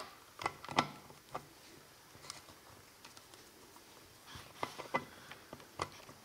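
Sparse light clicks and taps of small metal parts being handled, as locking pliers squeeze a pin into the bucket linkage of an all-metal scale excavator kit. A few ticks come close together a little after four seconds in.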